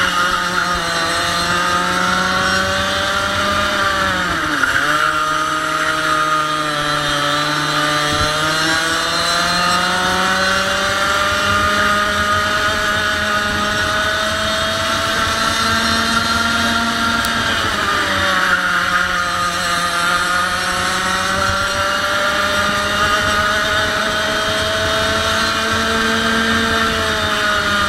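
100cc two-stroke kart engine running hard, its pitch dropping sharply about four to five seconds in and again around eighteen seconds as the kart slows, then climbing steadily back up as it accelerates.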